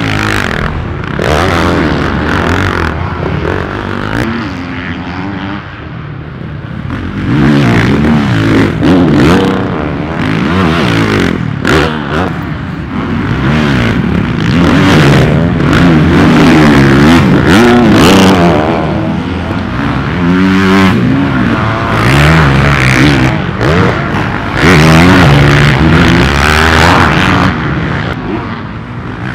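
Supercross dirt bikes' four-stroke engines revving hard and falling back as riders power through deep sand corners, several bikes at once, the loudness swelling and dropping as they pass.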